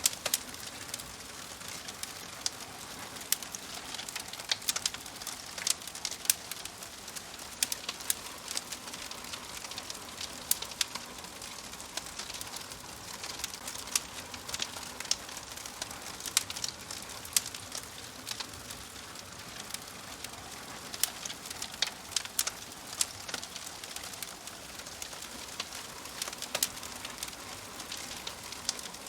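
Wood fire of burning logs in a fireplace crackling, with frequent sharp irregular pops and snaps over a steady soft hiss.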